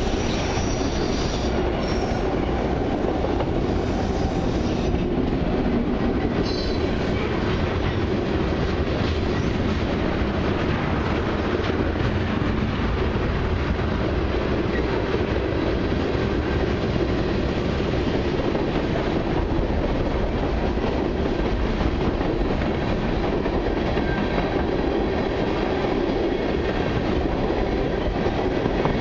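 Long freight train of autorack and tank cars rolling steadily past close by: continuous rumble and rattle of steel wheels on rail, with a few brief high wheel squeals in the first several seconds.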